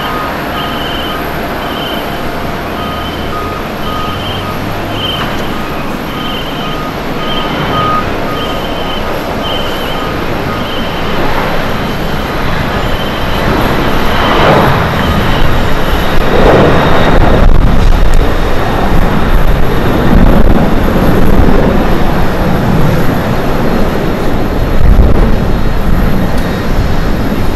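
Japan Airlines Boeing 767-300ER's twin General Electric CF6-80C2 turbofans at takeoff thrust, a steady jet roar that builds as the aircraft accelerates and lifts off, loudest in the second half.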